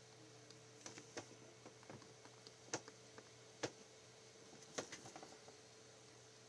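Faint, irregular clicks and taps of metal watchmaker's tweezers and tools handling a watch movement while the balance assembly is fitted, with a few sharper clicks in the middle, over a faint steady hum.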